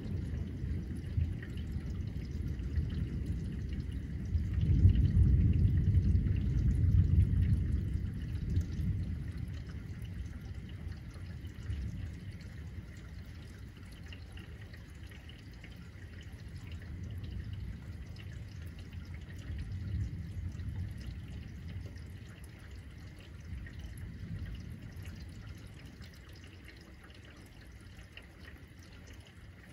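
Steady rain falling and dripping, with a long low rumble of thunder that swells about four seconds in and rolls away over several seconds, then fainter rumbles further on.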